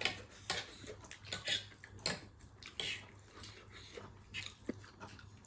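Quiet close-up eating sounds: someone chewing chow mein noodles, with a scatter of soft mouth clicks and lip smacks.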